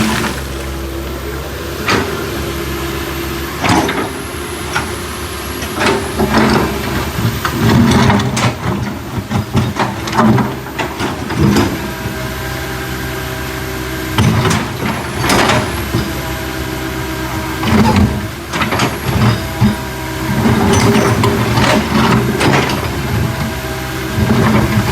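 Backhoe's diesel engine running steadily, with repeated sharp knocks and clanks as it works.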